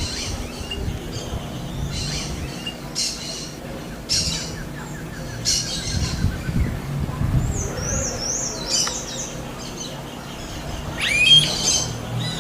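Wild birds calling: short high chirps repeating about once a second, a descending trill a few seconds in, and a quick run of high up-and-down notes past the middle.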